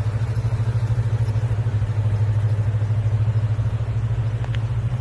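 A vehicle engine running steadily at low revs: a low, even hum with a fast regular pulse. There is a faint click about four and a half seconds in.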